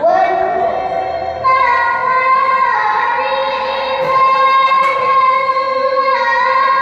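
A girl's voice reciting the Quran in melodic tilawah style into a handheld microphone, holding long notes. The pitch steps up to a higher note about a second and a half in.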